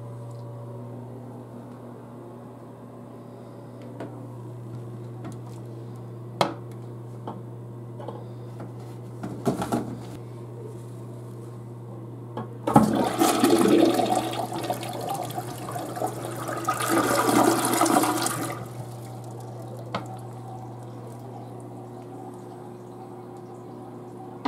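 Tank toilet flushing: water rushes in suddenly a little past halfway, runs loudly for about six seconds, then falls away. A steady low hum runs underneath, with a few sharp clicks before the flush.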